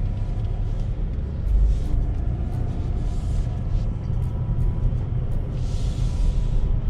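Low, steady rumble of a 2019 Chevrolet Colorado 4WD pickup driving off-road, heard from the cabin, with background music over it and two brief hisses, about three and six seconds in.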